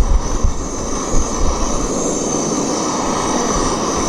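Strong wind roaring steadily around the tent, with gusts buffeting the microphone in low rumbles.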